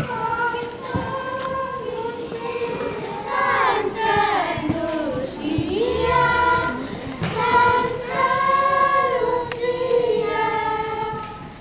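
Children's choir of girls singing a slow melody in unison, holding long notes with a few gliding phrases.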